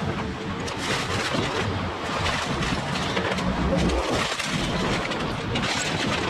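Demolition noise played back fast: heavy machinery running under a constant clatter of crunching, breaking debris.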